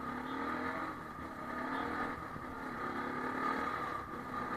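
Bajaj Pulsar NS200's single-cylinder engine pulling while riding in traffic, its pitch rising in three pulls over the few seconds as the rider accelerates.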